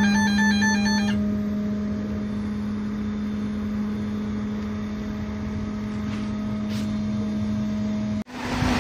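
Guitar music ends about a second in. Then comes a steady electrical hum with one strong low tone from the trolleybus's onboard equipment, running on mains power through a homemade rectifier. The hum cuts off suddenly near the end.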